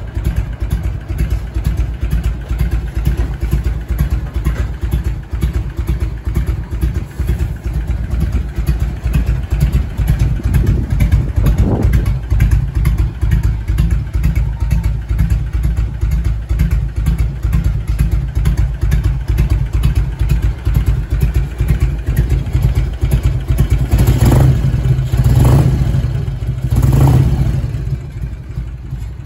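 1998 Harley-Davidson Heritage Springer's Evolution V-twin idling with a steady low pulse. The throttle is blipped once about twelve seconds in, then three times in quick succession near the end.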